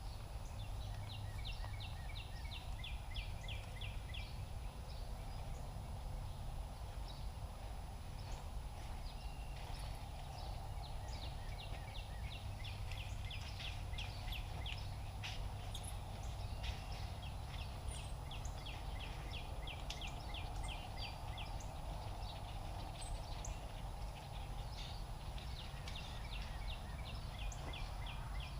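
Animal calls: rapid trills of clicks repeated again and again, each about a second or two long, over a steady low rumble.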